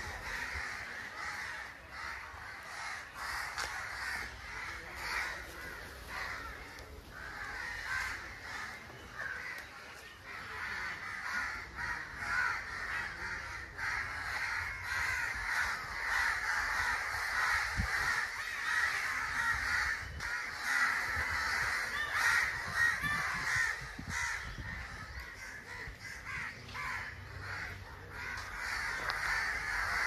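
A flock of crows cawing without a break, many calls overlapping.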